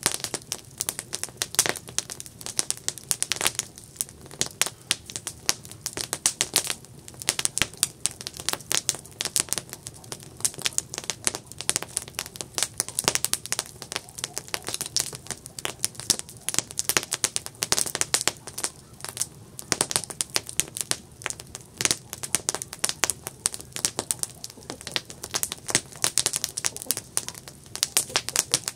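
Wood campfire crackling: dense, irregular sharp pops and snaps over a low steady hiss of burning wood.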